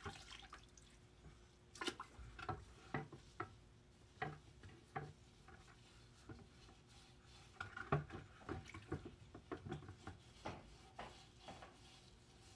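Degreaser solution sloshing and dripping in a plastic bucket as a greasy metal transmission part is worked around in it by hand. Small splashes and drips come in two spells.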